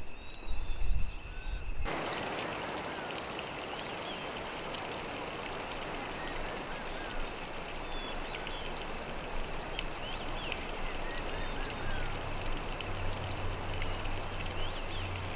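Steady rush of running water, starting abruptly about two seconds in, with scattered short bird chirps over it. Before it, a few low thumps.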